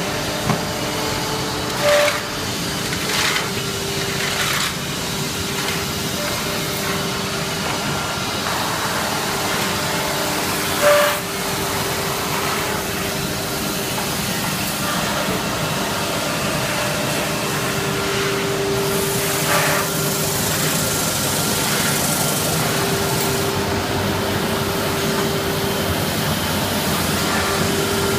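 Steady running noise of a wood sanding line for chair parts: machine motors and dust-extraction suction with a constant hum. A few short sharp knocks stand out over it, the loudest about eleven seconds in.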